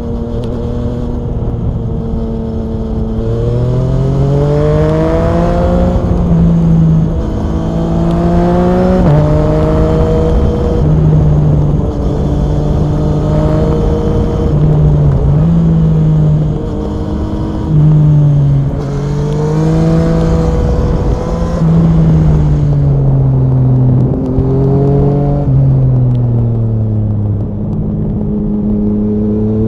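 Yamaha MT-09 SP's three-cylinder engine through an Akrapovic Racing exhaust, riding under way: the engine note climbs in several rising sweeps as the bike accelerates, about four seconds in, around nine, around twenty and around twenty-five seconds, with steadier cruising stretches between them.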